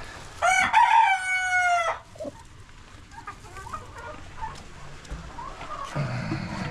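A rooster crows once, a single call of about a second and a half, loud and clear. Softer hen clucking and small scratching noises follow.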